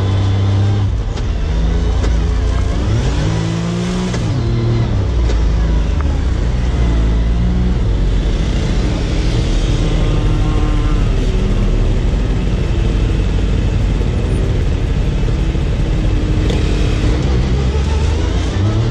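Side-by-side UTV engine revving up and down as it drives over sand dunes, the pitch rising and falling with the throttle.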